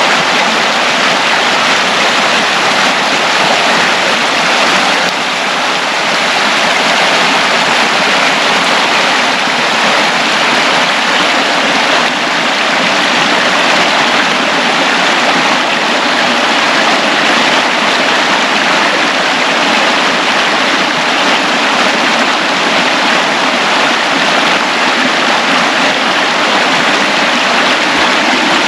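Tank Creek rushing loudly over rapids and small cascades: a steady, full rush of running water.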